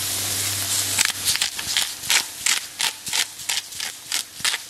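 Ground beef sizzling in a hot skillet, then from about a second in a spatula scraping and stirring it in the pan with short strokes, about three a second.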